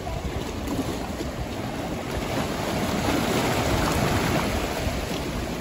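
Sea waves surging and washing over shoreline rocks, swelling louder about three seconds in.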